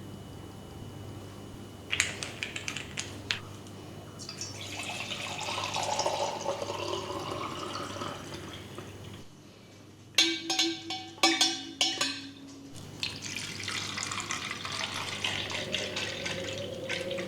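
Water running from a tap, in two spells, with a few sharp clicks before the first and a quick run of ringing hard clinks between them.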